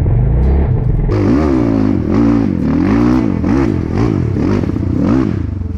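Dirt bike engine being ridden on the throttle, its pitch rising and falling about twice a second as the rider blips the revs, after a steadier rumble in the first second.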